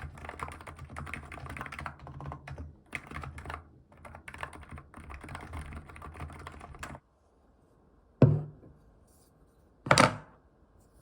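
Typing on a computer keyboard in quick runs of key clicks with short pauses, stopping about seven seconds in. Then two loud thuds follow about a second and a half apart, the second the louder.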